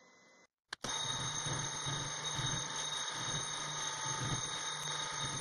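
Metal lathe running and taking a facing cut with a carbide-insert tool across the end of a steel workpiece. It is a steady whine with several constant high ringing tones over the cutting noise, starting about a second in after a short click.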